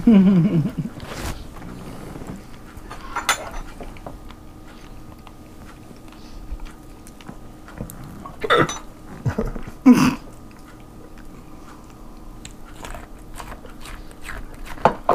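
A person biting into and chewing corn on the cob, with a few short crunching and mouth noises spread through.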